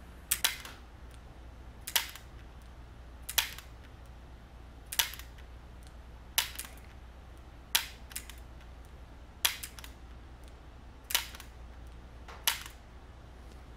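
Air pistol dry-fired nine times, a sharp click of the trigger and hammer falling about every one and a half seconds, for timed shots of a 10-shot course.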